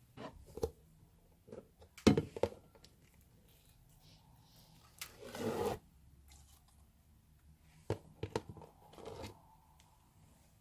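Thick clear slime being handled and pulled out of plastic tubs into a bowl: short sharp knocks and clicks of the containers, the loudest about two seconds in, and a longer sticky tearing stretch a little past halfway.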